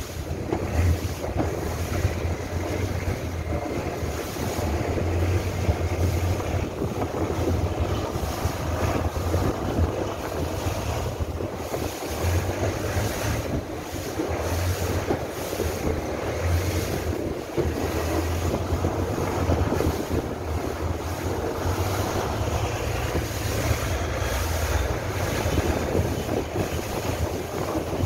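Longtail boat engine running steadily under way, a constant low drone, with wind buffeting the microphone and water rushing along the hull.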